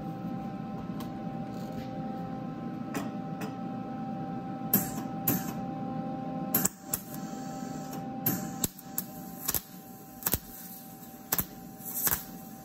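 MIG welder running with a steady hum, then striking its arc in short, irregular crackling bursts from about five seconds in, stopping and starting as it stutters. Right after, the welder decides to turn the wire speed up.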